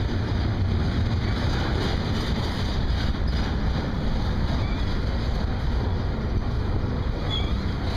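Double-stack intermodal freight train's loaded well cars rolling past: a steady low rumble of steel wheels on rail.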